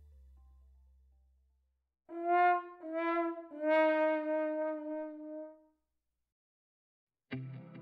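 Descending 'wah-wah-waah' brass fail sound effect: three falling notes, the last held for about two seconds, marking a letdown. Background music fades out before it, and new music with a beat comes in near the end.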